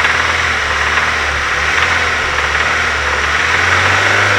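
Nissan SR20DET turbocharged four-cylinder engine idling steadily with its abnormal noise present, a noise that goes away when the setting is turned to its lowest and returns at its normal position.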